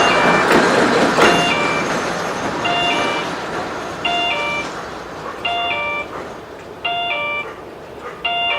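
Electronic railway crossing warning chime, a two-note sound repeating about every 1.4 seconds, while the noise of a train that has just crossed fades away over the first couple of seconds.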